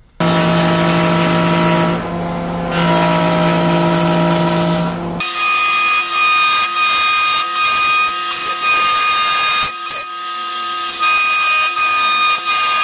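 Woodworking power tool running loud and steady. About five seconds in its sound changes from a low hum to a higher whine with more hiss.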